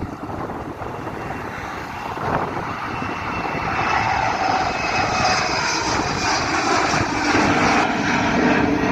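Departing airliner's engines at takeoff power, growing louder over the first few seconds and then holding loud, with a steady high whine over the rushing noise.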